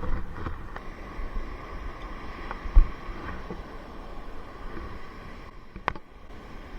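Strong wind buffeting the microphone: a steady rushing noise with low rumble, one sharp low thump about three seconds in, and a few small clicks.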